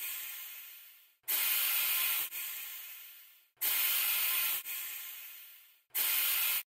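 Hourglass sand sound: a hissing pour in repeating swells, each starting suddenly, holding about a second and then fading away, about every two and a third seconds. The last swell is short and cuts off abruptly near the end.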